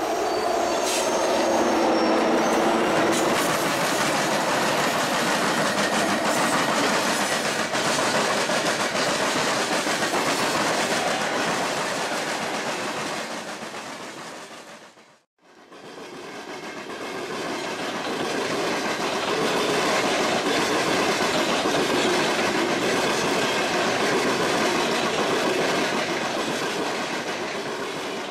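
Freight train of loaded coal hopper cars rolling past, with steady wheel-on-rail noise and clickety-clack over the rail joints. It fades out and drops away about halfway, then another string of loaded coal hoppers rolls past with the same steady rumble.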